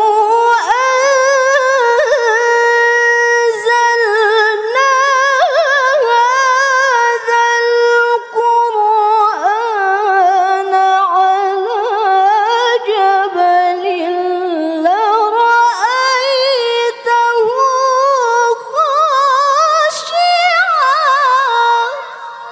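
A woman reciting the Qur'an in the melodic tilawah style, one long drawn-out phrase sung with wavering ornamental turns. The phrase climbs higher in its second half and fades out near the end.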